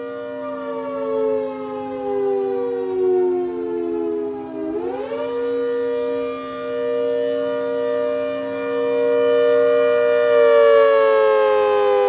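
ACA Hurricane outdoor warning siren sounding a two-note chord that slowly winds down in pitch, swings quickly back up about five seconds in, holds steady, and starts winding down again near the end. A steady lower hum runs underneath.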